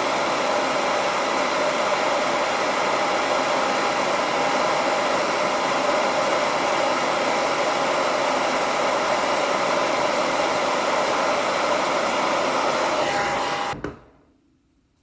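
Hairdryer blowing steadily, heating a replacement phone camera lens glass so its adhesive ring softens and seals; it switches off abruptly near the end.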